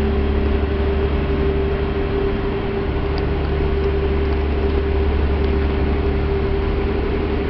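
Passenger ferry's engines running steadily underway: a constant low rumble with a steady mid-pitched hum on top.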